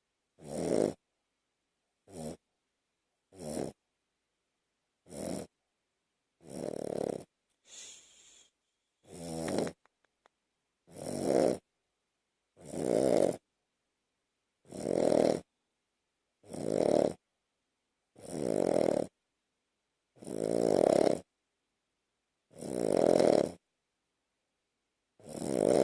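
Shih Tzu–Lhasa Apso–Bichon mix dog snoring in its sleep, one snore every one and a half to two seconds. The snores grow longer and louder as they go on, with one fainter, breathier one about a third of the way in.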